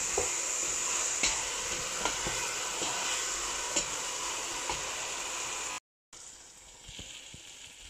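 Spiced potato cubes sizzling in oil in a non-stick pan as they are stirred with a spatula, with scattered light taps and scrapes. A little before 6 seconds the sound cuts out for a moment and comes back quieter.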